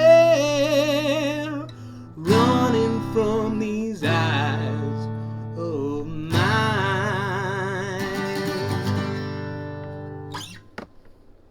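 Acoustic guitar and voice closing a soul song: a held sung note with vibrato, then three strummed chords about two seconds apart, the last left to ring out and fade. A small click follows near the end.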